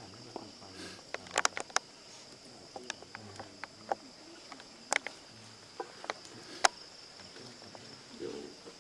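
Night insects, crickets, chirring steadily in a high band. Scattered sharp clicks and taps sound over it, the loudest a single click a little before the end.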